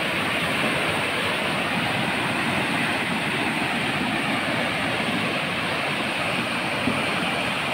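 Fast, muddy floodwater rushing in a swollen river: a steady rushing noise with no breaks.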